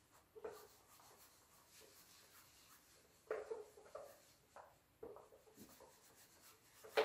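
Whiteboard eraser wiping marker writing off the board: a few short, faint rubbing strokes, most of them in the second half.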